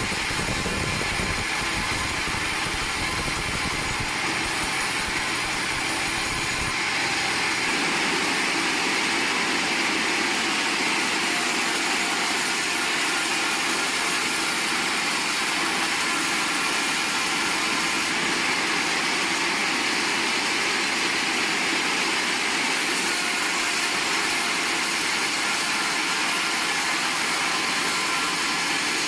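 Sawmill saw running steadily with a constant mechanical whir; its low rumble drops away about four and again about seven seconds in.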